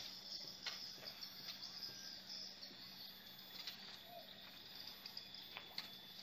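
Faint steady high-pitched chorus of insects, crickets or similar, with a few faint clicks.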